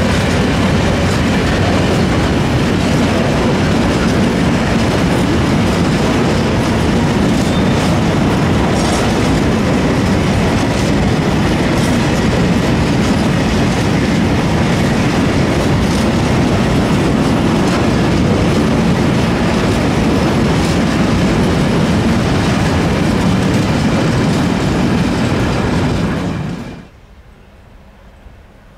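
A train running along the track, its wheels clattering over the rails, loud and steady. It cuts off suddenly a couple of seconds before the end, leaving only faint background noise.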